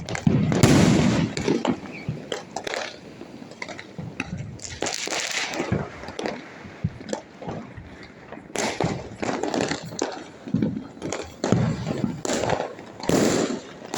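Firecrackers and fireworks going off, with irregular bangs and cracks at varying distances. A louder boom comes about a second in, and more bursts cluster near the end.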